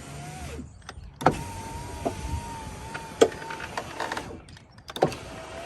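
2012 Dodge Caravan power window motor on a newly installed window regulator, whining as it drives the door glass one way and then the other. Each run stops and starts with a sharp clunk, and there are several loud clicks during the longer run in the middle.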